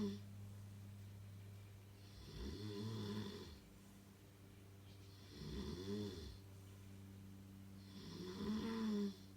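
Snoring: three rough, pitched snores about three seconds apart, each lasting about a second, over a steady low hum.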